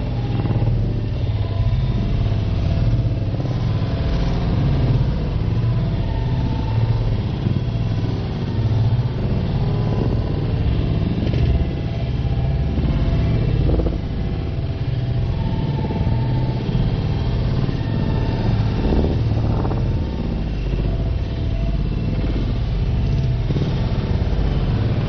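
Steady low rumble of a moving vehicle's engine and road noise, with no distinct crash or impact.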